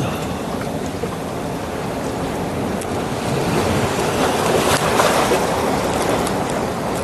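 Heavy sea surf washing in, with wind buffeting the microphone; a wave surges louder about five seconds in.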